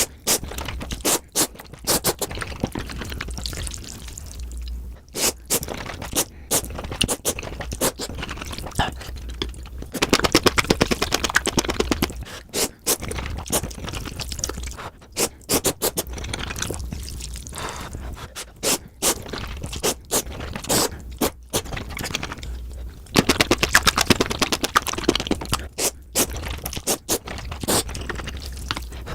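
Close-miked eating of noodles in big bites, played back at four times speed: a dense run of quick clicks, smacks and slurping noise. There are louder stretches about ten seconds in and again near the end.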